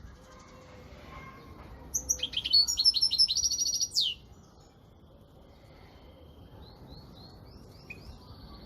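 European goldfinch singing: a loud two-second phrase of rapid, high twittering notes that ends in a falling sweep, then softer twitters near the end.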